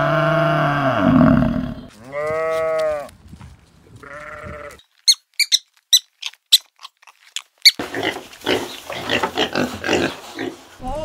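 A string of animal calls: a long low moo, two shorter, higher calls, then a run of about eight sharp high squeaks, and pigs grunting over the last few seconds.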